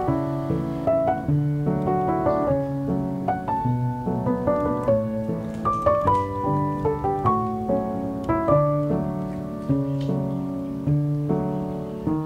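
Background piano music, a melody of single notes over chords.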